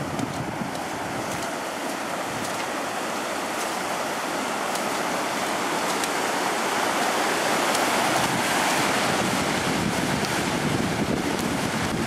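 Floodwater rushing and churning through a breach in a river levee and pouring over the bank, a steady rush of white water that grows louder over the first several seconds. The embankment has burst.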